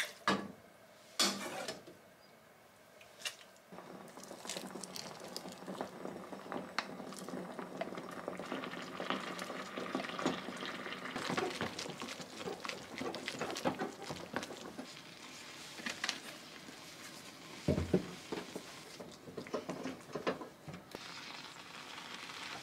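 A metal ladle clinking against a glass pot a few times as tomato soup is poured in, then a wooden spatula stirring and scraping a thick oatmeal-and-tomato mixture in the glass pot, with many small clicks and one dull knock near the end.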